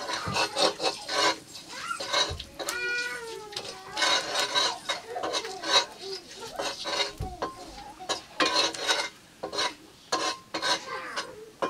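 Long metal spatula scraping and clanking against a black iron karahi while chicken is stirred and fried in it, in repeated runs of strokes. A short animal cry, falling in pitch, about three seconds in.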